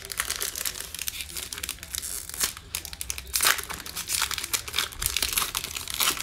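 Foil wrapper of an Illusions football card pack being torn open and crinkled by hand: a continuous run of sharp crackling and tearing, loudest about three and a half seconds in.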